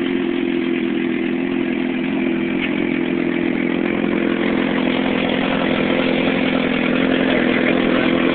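2008 Suzuki GSX-R600 inline-four idling steadily through a Two Brothers carbon-fibre slip-on exhaust on 2007 headers, with no catalytic converter. The note holds an even pitch, growing slightly louder near the end.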